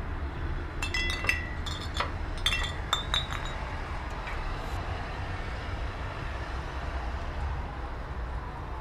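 A quick run of glassy clinks, each ringing briefly, from about one second in to about three and a half seconds in, over a steady low rumble.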